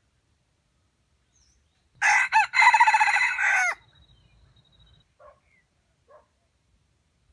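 Red junglefowl rooster crowing once: a short crow of under two seconds that breaks near its start and cuts off abruptly. A couple of faint short calls follow.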